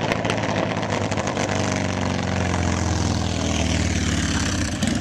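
Custom Harley-Davidson Road King bagger's V-twin engine running as the bike rides past, a steady low exhaust note.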